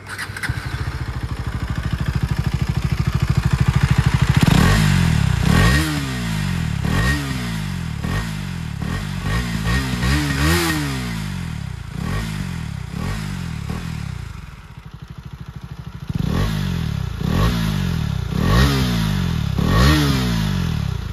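Husqvarna Vitpilen 250's single-cylinder engine starting up, idling steadily for a few seconds, then revved in repeated quick blips that rise and fall, through a replica Akrapovič slip-on muffler. The rider hears the note as barely changed from stock, with only a little added bass.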